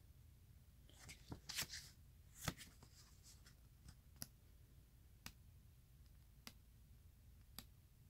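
Faint rustling and soft clicks of a book's pages being leafed through, mostly in the first two and a half seconds, then near silence with a few faint single ticks.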